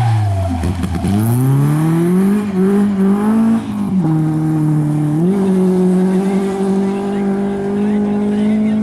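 Rally car's engine dropping in revs as it slows, then pulling away with the revs climbing. The note dips once at a gear change and then holds steady.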